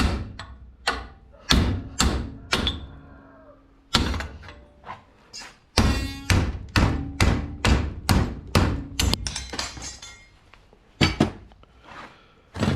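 Hammer blows on the metal parts of a paintball marker being knocked apart for scrap: a run of sharp strikes about two a second, some leaving a short metallic ring, with a pause near ten seconds before a few more blows.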